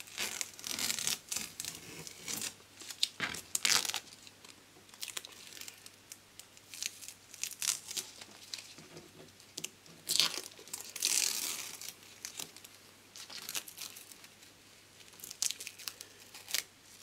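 Masking tape strips being peeled off the edges of a spray-painted heating-bed panel, in a series of short, irregular rips.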